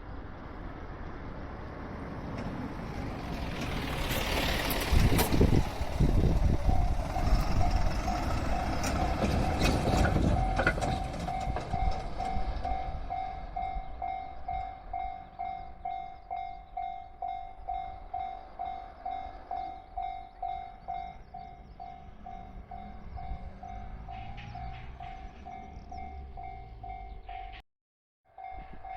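A train passes over the level crossing with a loud rush of wheel and rail noise that swells and fades over about ten seconds. As it dies away, the crossing's electronic warning bell rings on steadily at about two strokes a second, with a brief cut-out near the end.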